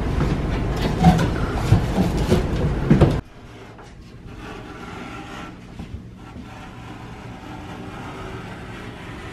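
Rumbling handling noise with several sharp knocks as a board is carried and bumped about. It stops suddenly about three seconds in, leaving a quieter steady hum with a faint click near the middle.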